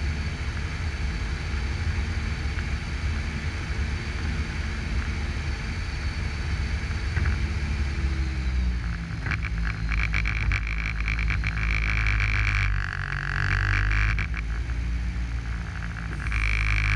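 Reform Metrac G5X tractor's diesel engine running with a steady low rumble, its pitch dropping about eight seconds in. In the second half a high whine comes and goes, loudest near the end.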